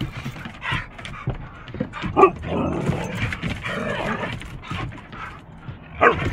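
Two Siberian huskies play-fighting and vocalizing at each other: a rowdy, irregular stream of barks and yips, with loud outbursts about two seconds in and near the end.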